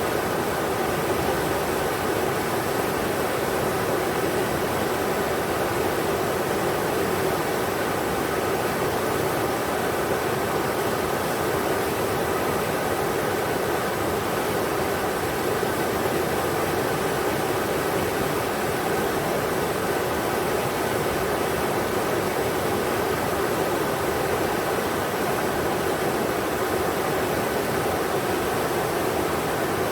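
River water rushing over rocks, a steady, even rush with no breaks.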